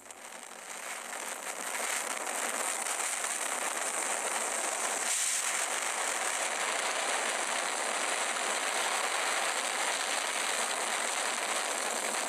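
Hero Honda motorcycle being ridden, heard as a steady rushing noise of engine and wind that builds over the first two seconds and then holds.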